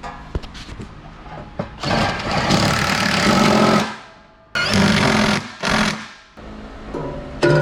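A power tool run in three loud bursts: a long one of about two seconds, then two shorter ones, each rough and rattling.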